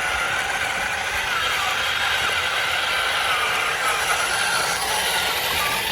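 Small electric motor and plastic gears of a toy RC construction vehicle running, a steady whine that wavers slightly in pitch over a gear rattle.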